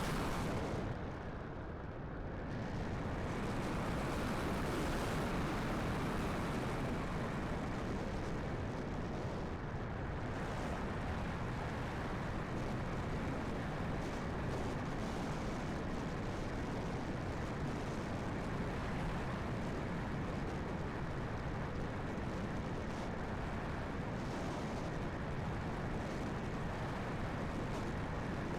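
Strong gusty wind buffeting the microphone, a steady rumbling noise that dips briefly about a second in.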